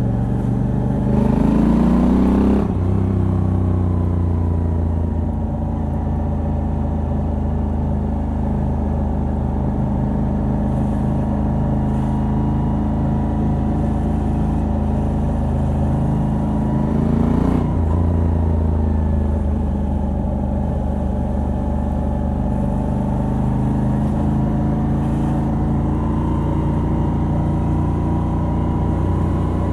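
Moto Guzzi V85TT's air-cooled transverse V-twin, stock exhaust with a decat pipe, running under way. It revs up and drops sharply on an upshift about two and a half seconds in, then runs steadily. A second rev-up and upshift comes a little past halfway, after which the revs climb slowly.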